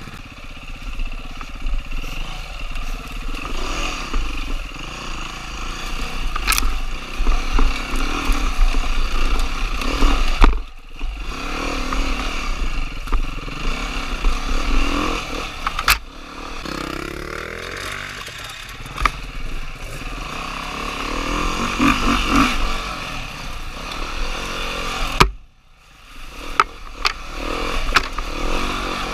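Dirt bike engine being ridden on an enduro trail, revving up and down with the throttle, with several sharp clattering knocks. The engine sound drops away sharply twice, about ten seconds in and near the end.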